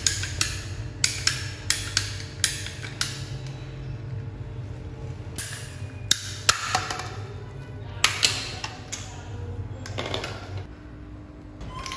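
Ratcheting PVC pipe cutter clicking as it is squeezed through grey plastic pipe: a run of sharp clicks about two a second for the first three seconds, then scattered clicks.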